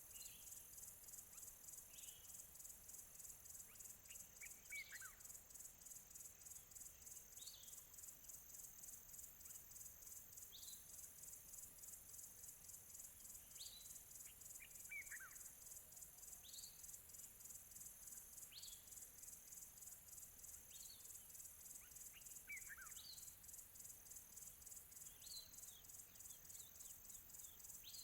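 Faint countryside ambience: crickets chirping in a steady, high, finely pulsing chorus, while a bird gives short high chirps every couple of seconds and a longer falling call three times.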